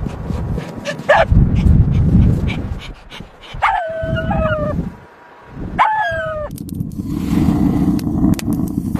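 An animal whimpering: two drawn-out whining cries, each sliding down in pitch, about four and six seconds in, over a low rumbling noise.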